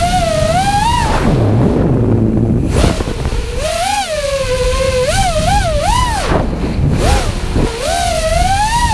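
FPV quadcopter's brushless motors and propellers whining, the pitch swooping up and down with the throttle. About a second in the throttle drops to a low hum, then punches back up about two seconds later, with another dip around seven seconds in. A steady rushing noise runs underneath.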